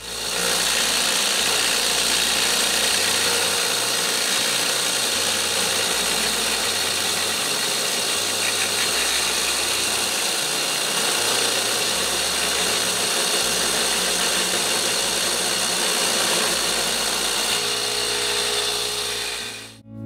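Homemade electric chainsaw mill, a 2-horsepower induction compressor motor driving a chainsaw bar and chain, ripping steadily through a log. It fades in at the start and fades out at the end.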